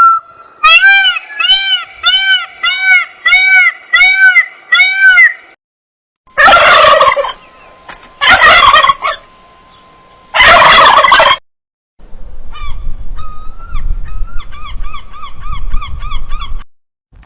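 Domestic fowl calling loudly: a run of about eight evenly spaced calls, then three long harsh calls, then another quick run of calls.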